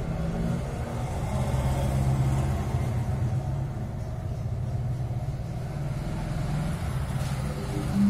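Motor vehicle engine running with a steady low rumble that swells and eases slightly, with no sharp knocks.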